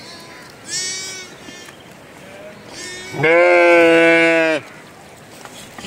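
Bleating from a mixed flock of sheep and goats: a shorter bleat about a second in, then a long, loud, steady-pitched bleat about three seconds in, lasting over a second.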